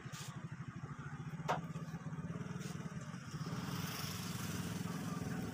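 Small motorbike engine running with an even, low pulsing beat, a single sharp click about one and a half seconds in, and a hiss that builds near the end as it gets under way.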